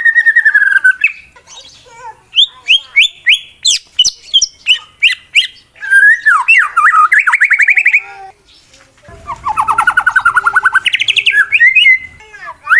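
White-rumped shama (murai batu) singing a loud, varied song in phrases with short pauses: a falling whistle, quick sharp notes, then fast trills. This is a male contest bird's aggressive song, used to challenge a rival.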